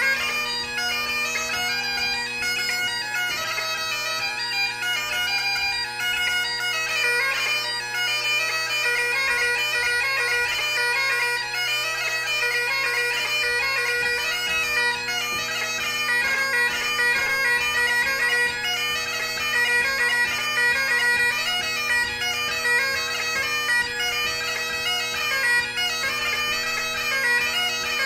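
Great Highland bagpipe played solo: the drones hold one steady chord underneath while the chanter runs a quick-moving melody of fast notes.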